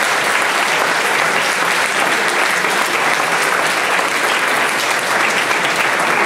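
Loud, steady applause from a large audience, many people clapping at once.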